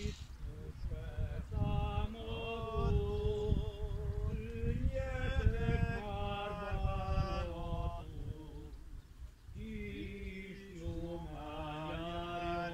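A slow funeral chant sung by a voice in long held notes, breaking off briefly about nine seconds in and then resuming. Wind rumbles on the microphone underneath.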